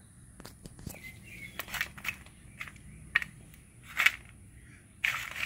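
Uncooked crinkle-cut potato fries being pushed and shuffled by hand across a metal baking sheet: irregular clicks, light scrapes and rattles of the pieces against the pan and each other.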